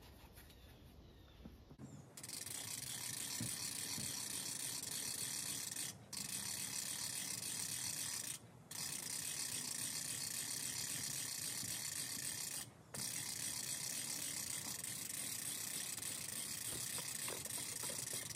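Winch ratchet clicking rapidly as the winch is worked, hoisting a heavy load. It starts about two seconds in and stops briefly three times.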